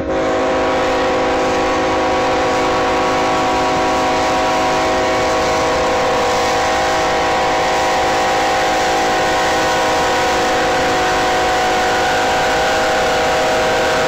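Loud, steady drone of several held tones over a hiss.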